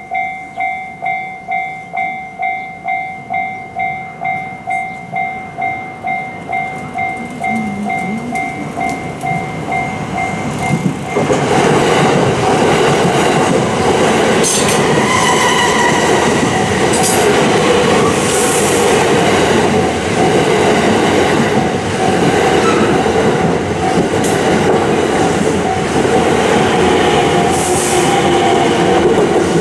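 Japanese level-crossing alarm ringing its "kan-kan" two-tone chime about twice a second. About 11 seconds in, a train passes close by, and the loud rush and clatter of its wheels and cars drowns out the alarm.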